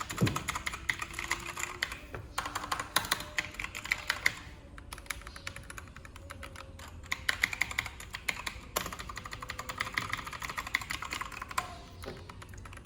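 Typing on a Keychron mechanical keyboard: fast runs of key clicks in several bursts, with short pauses between them.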